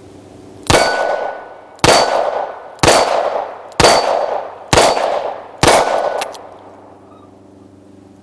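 Six gunshots from a Rock Island AL9.0 9mm revolver firing steel-cased 9mm, about a second apart, each followed by a short metallic ring from the struck steel target.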